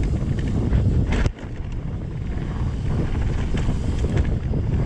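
Wind buffeting the camera microphone over the rumble of a mountain bike rolling downhill across a wooden slatted boardwalk and on along dirt singletrack. A brief rattle of clicks just after a second in, then the rumble drops off suddenly for a moment and builds back.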